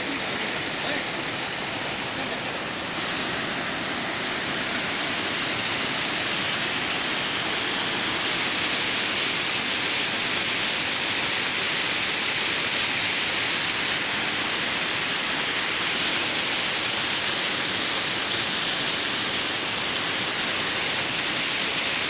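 Waterfall rushing: a steady, even noise of falling water, growing a little louder about eight seconds in.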